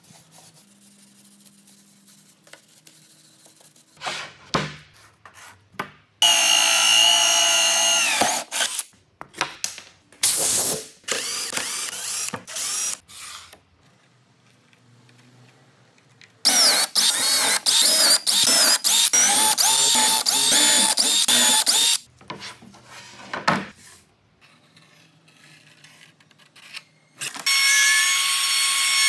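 Power tool run in several bursts of a few seconds each, its whine steady in some runs and rising and falling in others, with clicks and knocks of handling in between.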